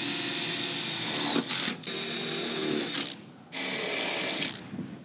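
Power drill running in four short runs of a second or two each, a steady high motor whine that stops and starts between them.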